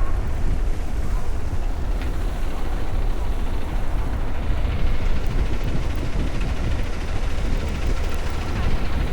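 Steady city street noise on a snowy avenue: a heavy, continuous low rumble of vehicle traffic under an even hiss, with no single event standing out.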